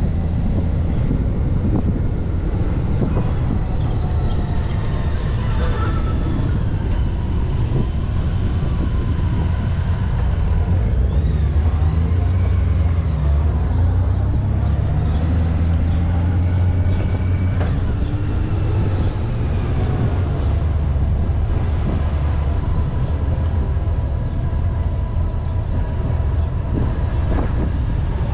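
Honda Gold Wing touring motorcycles heard from onboard a riding bike: a steady low engine and road rumble, with engine pitch rising and falling as the convoy speeds up and slows, loudest about halfway through.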